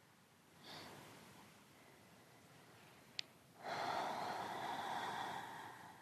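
Slow, audible breathing during a yoga forward fold: a soft inhale starting about a second in and fading, then a longer, louder exhale from about halfway that fades out near the end. A brief click comes just before the exhale.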